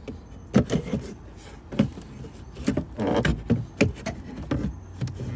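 Irregular knocks, taps and clatters, about half a dozen in a few seconds, from hand work on sheet-metal trim and wooden framing, with a brief metallic scrape about three seconds in.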